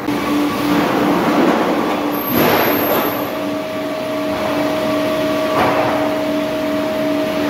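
Sawmill log conveyors and canter-line machinery running: a steady mechanical din with a pulsing hum as chain conveyors carry round logs. A higher steady tone comes in about three seconds in, and louder swells of noise rise twice.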